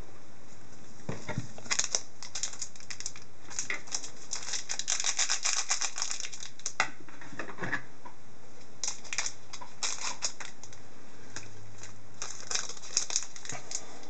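Hockey trading cards being handled and flipped through by hand: irregular crisp clicks and papery rustles as cards slide over one another, busiest in two spells, in the middle and again near the end.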